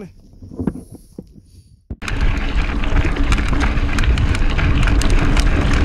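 Mountain bike ridden fast over a rocky trail: wind buffeting the microphone with a heavy rumble and many sharp rattling clicks from the bike on the rocks. It starts abruptly about two seconds in, after a quieter stretch of soft knocks.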